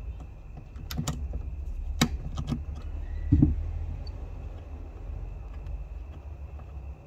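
Handling of car-battery cables and terminals: a few sharp metallic clicks and taps as the cables and clamps are moved over the batteries, then a duller, heavier knock about three and a half seconds in.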